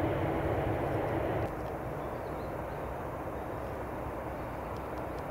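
Boeing 717's Rolls-Royce BR715 turbofans heard at a distance on final approach: a steady rumble that drops suddenly in level about a second and a half in.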